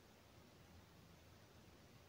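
Near silence: faint room tone with a little hiss.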